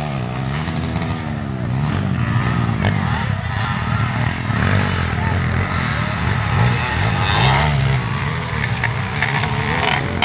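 Motocross dirt bike engines revving on the track, their pitch rising and falling over and over as the riders work the throttle.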